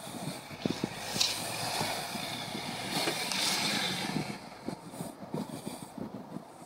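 Ford Kuga SUV crawling over rough snowy ground: the engine runs under a haze of noise, and the tyres and body give irregular crunches and knocks.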